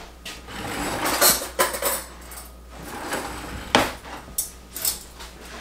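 Metal cutlery handled at the kitchen counter: a string of sharp clinks and rattles, with a stretch of scraping and rustling in the first half.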